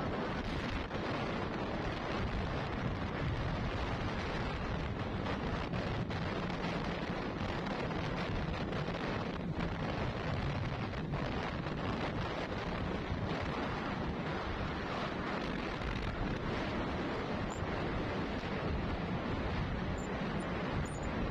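Steady wind and road rumble from a moving vehicle, with wind buffeting the microphone.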